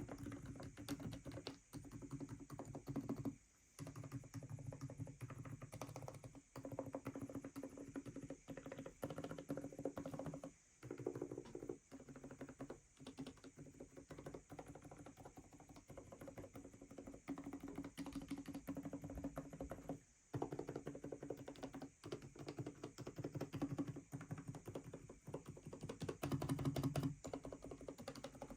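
Rapid, continuous typing on an Aula F87 Pro mechanical keyboard fitted with silent switches. The keystrokes come quickly, with a few short pauses.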